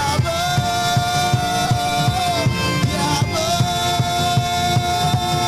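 A man singing two long held notes into a microphone, each ending in a slide downward, over live band accompaniment with drums and bass.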